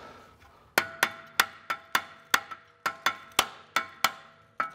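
A hammer taps a BMW 328i's rear brake rotor about a dozen times, roughly three strikes a second, and the steel disc rings briefly after each blow. The rotor is stuck to the hub by corrosion and is being knocked free.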